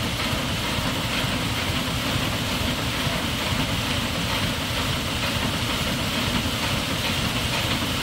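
Water rushing out from under a water-powered sawmill into the creek: a steady, even rush with a low rumble and no rhythm.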